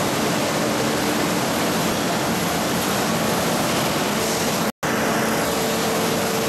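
Steady industrial noise from a steel coil slitting line and the plant around it: an even rushing din with a faint steady hum, a higher hum coming up just after four seconds in. The sound cuts out for a split second about three-quarters of the way through.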